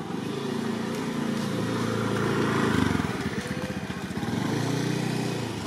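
A small engine running close by, growing louder to a peak about three seconds in, easing off, then swelling again briefly near the end.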